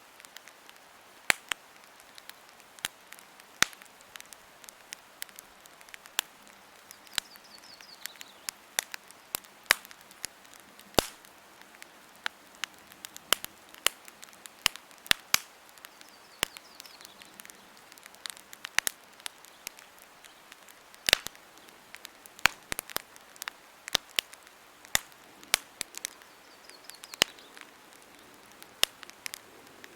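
Wood campfire crackling: sharp, irregular pops and snaps, often several a second, over a soft steady hiss.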